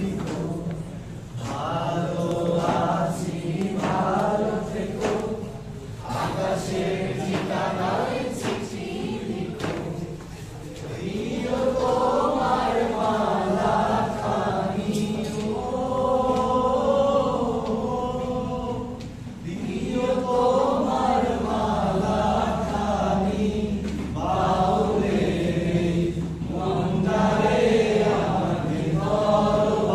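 Voices singing a Bengali song in long, slow phrases of held notes, with short breaks between phrases.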